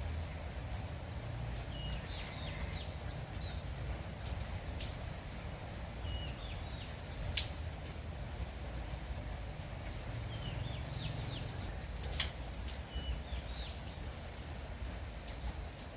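Small birds chirping in short repeated phrases over a steady patter of light rain, with now and then a sharp drip or tap, the loudest about seven and twelve seconds in.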